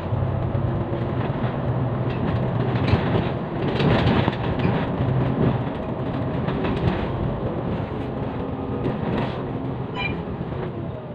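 Inside a moving bus: steady low engine drone with clattering rattles from the body and fittings as it drives, the rattling busiest about four seconds in.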